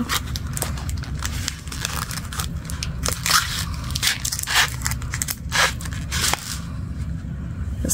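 Crinkling and scraping of a wrapped Hershey's chocolate bar being slid into a paper sleeve wrapper, with irregular crackles throughout.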